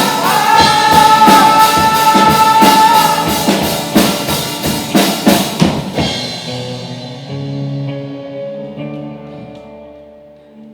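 Live rock band ending a song: a long held note over drum hits for the first few seconds, then a closing run of drum strikes, after which guitar and bass chords ring out and fade away.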